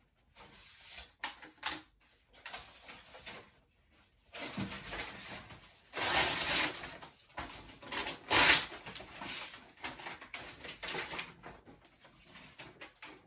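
Paper being rummaged through and handled, with irregular rustles and scrapes, the loudest about six and eight and a half seconds in.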